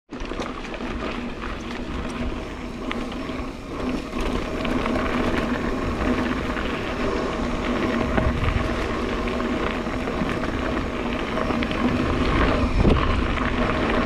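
Mountain bike rolling fast down a dirt singletrack: tyre noise and bike rattle, with wind rumble on the camera microphone that grows in the second half as the speed picks up.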